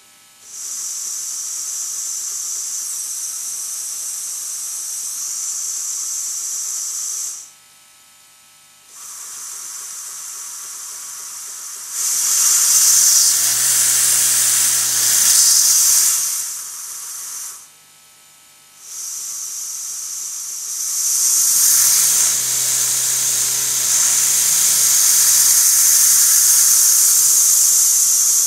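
Four-cylinder oscillating model marine steam engine running on compressed air, its exhaust hissing steadily. It stops twice for about a second and a half as the air valve is closed and reopened, and runs faster and louder in two spells, with a low hum added at speed.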